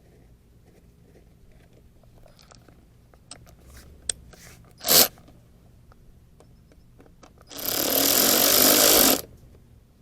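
Power tool run in a short burst about five seconds in, then again for about a second and a half near the end, driving fastener screws back in, with small clicks of parts being handled in between.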